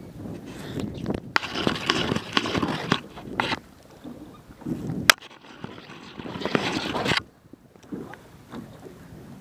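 Small boat on choppy sea: irregular swishing bursts of water and gear noise with a few sharp knocks, while a hooked fish is played on a hard-bent rod.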